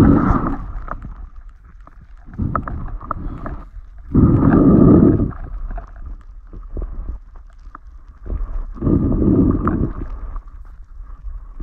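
Creek water heard with the microphone underwater: a muffled, dull rushing that swells up about four times, each lasting a second or so, with small clicks and ticks in between.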